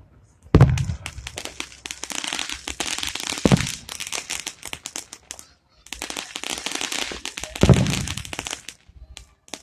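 Aerial fireworks bursting: three deep booms, about three seconds apart, each followed by a long spell of dense crackling.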